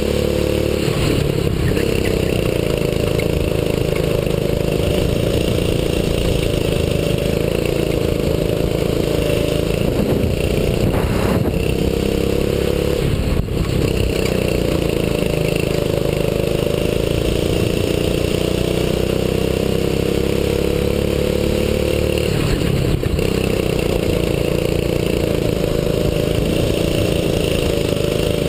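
A 6.5 hp kart engine at racing speed, heard on board: its pitch climbs slowly, then drops briefly twice, around the middle and late on, as it eases off and picks up again, over steady road and wind noise.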